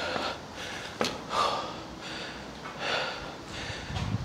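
A man breathing hard, in and out about every second and a half, winded from climbing many flights of stairs. A single sharp tap comes about a second in.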